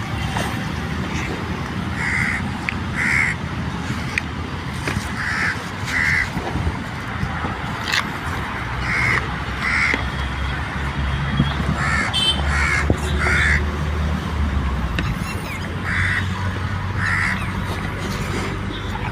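Crows cawing repeatedly, short calls mostly in pairs or threes every few seconds, over a steady low rumble.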